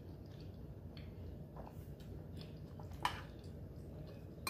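Soft, faint chewing and mouth sounds of someone eating pot pie, with a few small clicks of a metal fork in a glass bowl, the sharpest about three seconds in. A low steady hum sits underneath.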